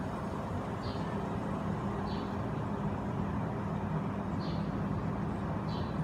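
Saijo Denki air conditioner outdoor unit running: a steady low hum with the rushing air of its metal-bladed condenser fan.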